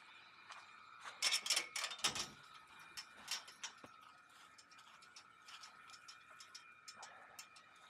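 Clicks and rattles of a metal-framed mesh door being handled, with a louder run of rough clicks and rustling about a second in, then scattered light ticks; a faint steady high hum underneath.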